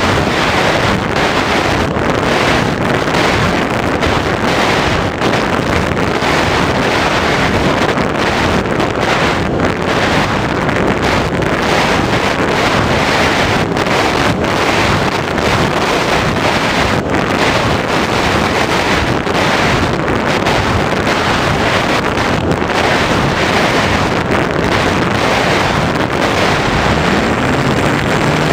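Loud, steady wind rushing over the onboard camera's microphone on a gliding RC model plane. Near the end a low hum rises and then holds as the electric motor spins up.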